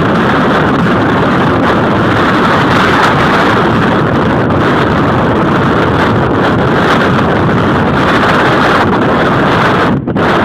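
Loud, steady rushing wind buffeting the microphone, dipping briefly just before the end.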